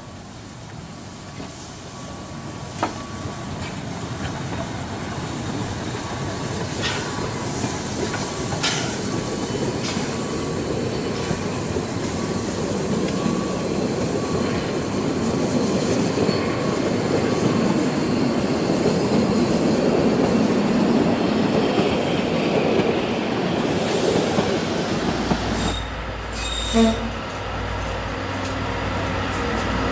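Narrow-gauge train running on the track, its wheel and rail noise growing steadily louder, with a few sharp clicks and some wheel squeal. About 25 seconds in it gives way to the low steady rumble of a diesel locomotive's engine.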